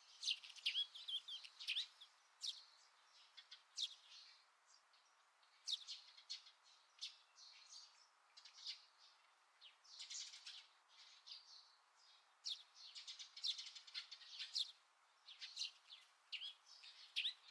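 Small songbirds chirping and twittering: clusters of short, quick high calls with quieter gaps between them.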